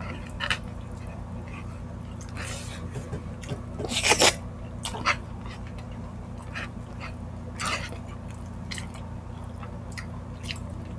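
Close-miked chewing and mouth sounds of eating rice and stewed meat by hand: short wet smacks and clicks, the loudest cluster about four seconds in, over a steady low hum.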